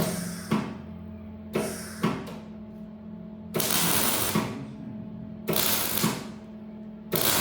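Gas-shielded welding arc on steel box section, struck in five short bursts of crackling hiss, each about half a second to a second long, as seams are stitch-welded. A steady low hum runs underneath.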